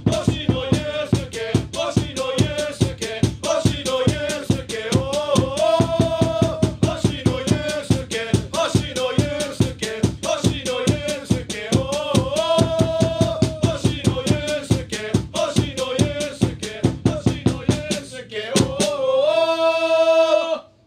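Football supporters' chant for a player, a repeated name sung as a melody over a steady, driving drum beat. It ends on a long held 'oh' note near the end, which cuts off abruptly.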